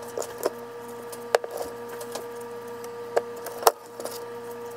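A spatula scraping and knocking against the inside of a stainless steel mixing bowl as tuna-patty mixture is scooped out: a scattering of short sharp clicks over a steady hum.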